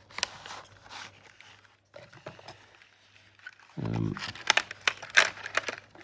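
Handling of a small model locomotive's box and packaging: a run of sharp clicks, taps and crinkling as the locomotive, stuck in the box, is worked at, loudest near the end. A short hum of a man's voice comes about four seconds in.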